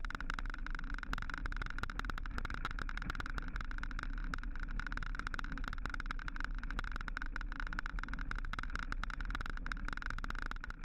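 Mountain bike riding over a rough road: a steady rumble and rattle with dense, irregular clicking, cutting off suddenly at the end.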